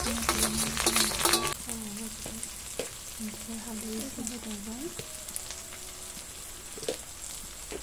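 A ground paste dropped into hot oil in a metal wok. It sizzles loudly for about the first second and a half, then settles to a quieter frying hiss as it is stirred with a metal ladle, with a few light scrapes and ticks.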